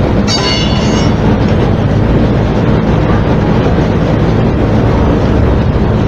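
Steady loud rumble with a low machine-like hum, and a brief high-pitched squeal about a third of a second in.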